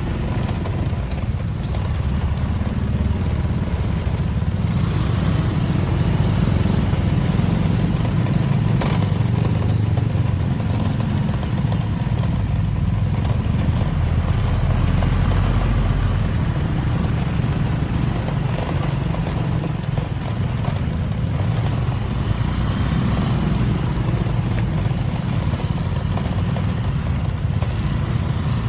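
A vehicle engine running steadily while driving over a damaged, rough road, heard as a continuous low rumble.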